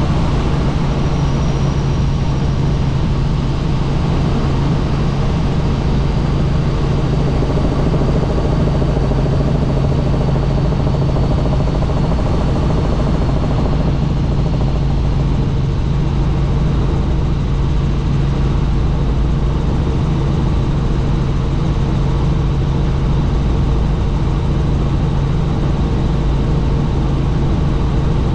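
Helicopter in flight: a steady, loud drone of engine and rotors with a strong low hum.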